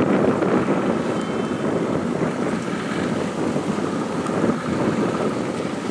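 Superdong IX high-speed passenger ferry underway on the river, its engines and hull wash making a steady rumbling noise, with wind noise on the microphone over it.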